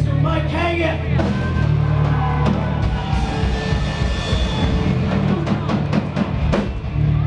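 Live rock band playing loud: electric guitars, bass guitar and a drum kit, with a sung line in the first second and a busy run of drum hits after it.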